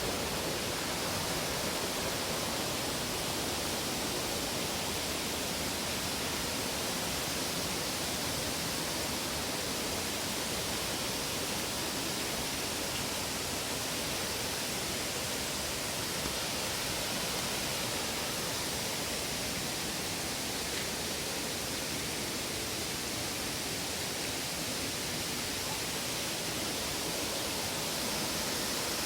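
Waterfall rushing, a steady even hiss of falling water with no breaks or changes.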